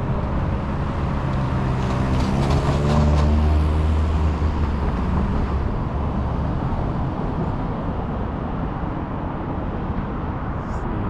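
Street traffic: a large vehicle's engine runs close by and is loudest a few seconds in, then fades into a steady rumble of road traffic.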